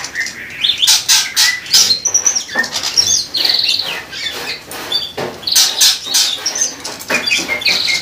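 Caged songbirds chirping and whistling, with a fast trill about three and a half seconds in, mixed with short bursts of wing flapping in the cage.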